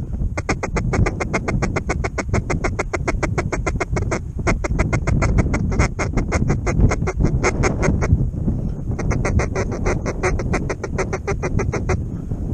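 Ducks quacking in a fast, even string of about six or seven calls a second, with short breaks about a third and two thirds of the way through, over a low wind rumble.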